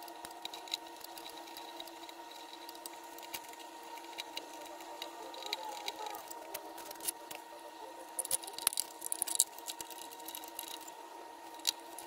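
Faint scattered clicks and ticks of a screwdriver and wires being worked at the terminal screws of an air compressor's pressure switch, coming thicker about three-quarters of the way through, over a steady faint hum.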